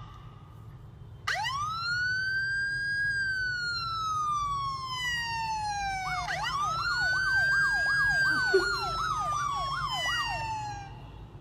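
Emergency vehicle siren wailing: a tone that sweeps up about a second in and falls slowly, then sweeps up again about six seconds in, with a faster warbling yelp tone running over the second fall. A low steady hum lies beneath.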